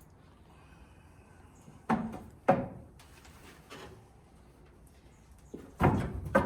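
A few sudden knocks and bumps, two close together about two seconds in and a heavier, longer clatter near the end.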